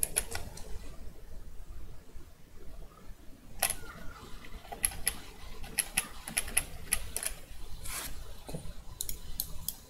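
Irregular clicks of a computer keyboard and mouse, several a second, starting about three and a half seconds in after a quiet stretch.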